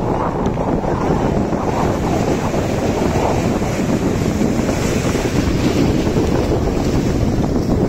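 Wind buffeting the microphone over the wash of small waves breaking in shallow surf: a steady, rough rumble.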